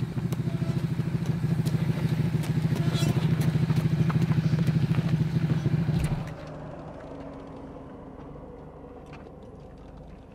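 Harley-Davidson touring motorcycle's V-twin engine running with a steady pulsing beat. About six seconds in it cuts off suddenly, leaving a faint low hum and scattered small clicks.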